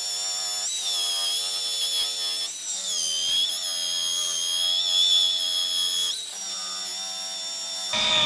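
Rotary polisher with a wool pad running as it buffs compound along the edges of a Plexiglas rear window to remove sanding marks. The motor gives a steady high whine whose pitch dips briefly a few times and stops near the end.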